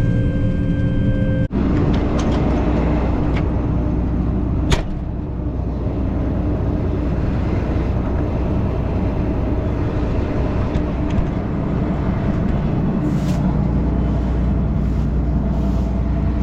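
Combine harvester running steadily during corn harvest, a loud even drone with strong low rumble, cut briefly about a second and a half in, with a single sharp click near five seconds.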